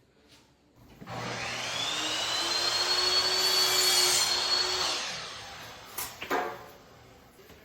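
A high-speed electric motor spins up with a rising whine, runs steadily for about four seconds, then winds down; two sharp clicks follow.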